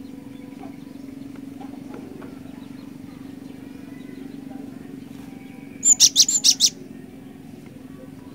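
Cinereous tit (glatik batu) calling: a quick run of about six sharp, high notes lasting under a second, about six seconds in, over a steady low hum.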